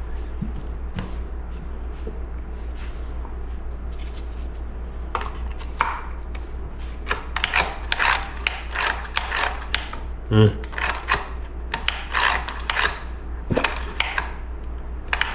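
Vintage chainsaw's recoil starter being refitted and worked by hand: irregular clusters of metal clicks and ratcheting from the starter mechanism, heaviest in the second half.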